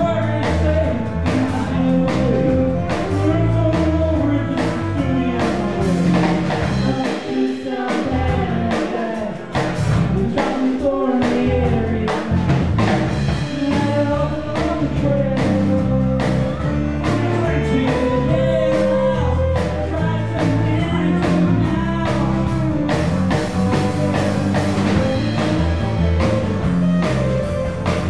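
Live folk band playing a song: a man singing over strummed acoustic guitar, violin, bass and drum kit. The bass and drums thin out for a few seconds about a quarter of the way in, then come back.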